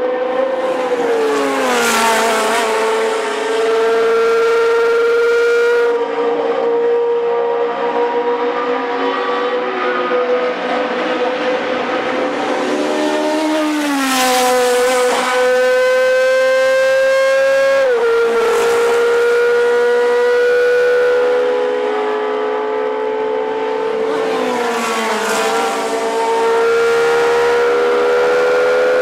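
Historic Formula One cars' high-revving racing engines at full throttle, one car after another passing. The pitch drops sharply several times as cars go by and shift gear, then climbs steadily between.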